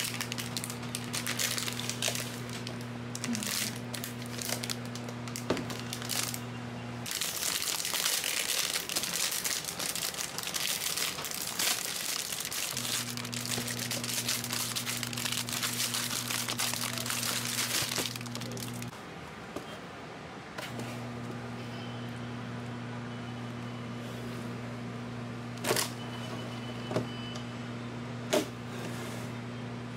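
Clear plastic wrapping crinkling and tearing as it is pulled off the pink plastic carry case of a Divoom Ditoo Plus pixel-art speaker. Near the end come three sharp clicks as the case is opened.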